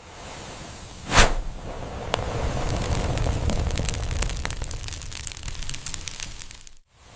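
Fire burning: a sudden loud whoosh as the flames flare about a second in, then a steady rush of burning with many small crackles, cutting off abruptly near the end.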